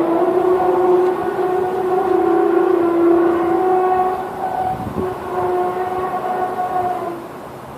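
A loud, long horn-like drone: a steady pitched tone with overtones that holds for about four seconds, then goes on more weakly and wavers, dropping away near the end.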